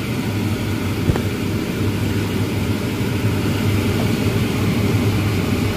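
Steady low mechanical hum over a noisy hiss, with a single light tap about a second in.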